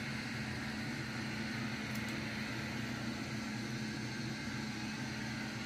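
Steady machine hum with an even fan-like hiss, unchanging throughout, and one faint tick about two seconds in.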